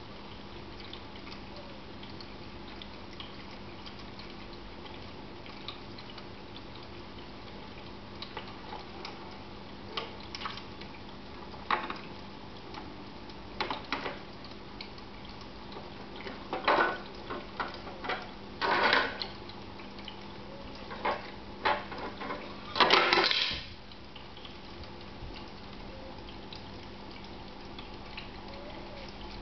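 Electric pet drinking fountain humming steadily with trickling water while a kitten paws at it. Scattered taps and splashes turn in the second half into louder clatters and scrapes of its plastic parts, the loudest lasting about a second, about three quarters of the way in.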